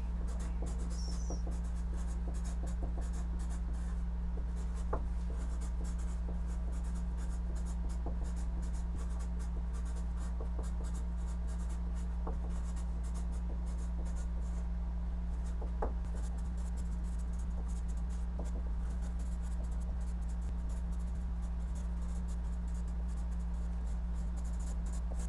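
Marker pen writing on large paper sheets fixed to a wall: a steady run of short scratchy strokes with a few sharper taps, over a steady low hum.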